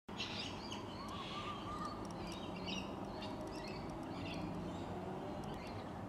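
Birds chirping and calling in short, scattered notes over a steady low background noise.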